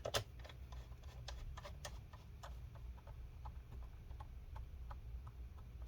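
Small Phillips screwdriver driving a screw into a laptop's plastic bottom case: a series of faint, irregular clicks and ticks as the bit turns and reseats, with one louder click at the start.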